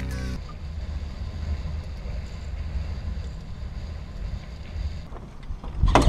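Low, steady rumble of wind on the microphone of a fishing boat under way, after the last half second of a song. A few sharp knocks near the end.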